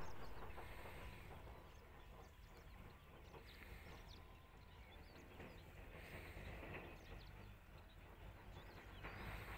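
Faint open-air ambience: scattered small bird chirps over a low, steady rumble of wind.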